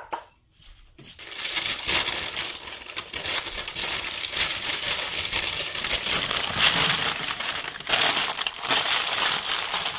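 Stiff brown kraft paper crinkling and crackling as it is handled and spread by hand over a wire cooling rack. It starts about a second in, after a single short click.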